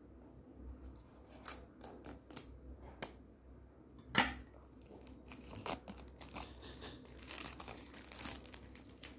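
Clear plastic shrink wrap crinkling and tearing as it is cut with scissors and peeled off a box. It comes as a string of short crackles, with one sharp, loud snap about four seconds in and denser crinkling near the end.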